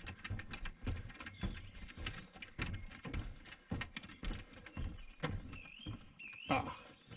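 Footsteps on a wooden plank boardwalk: hollow knocks and clicks at about two steps a second. A bird calls in short wavering chirps in the last couple of seconds.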